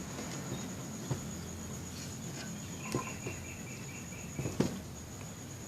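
A few faint clicks and taps of handling at a workbench, over a steady high-pitched whine and a low hum. About three seconds in comes a rapid string of short high chirps lasting under two seconds.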